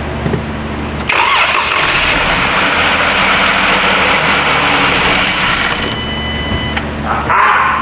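The 2012 Jeep Grand Cherokee's 3.6-litre V6 catches about a second in on starting fluid sprayed into the intake, and it runs loudly until about six seconds in. It starts on the spray but not on its own fuel, which points to a fuel delivery problem.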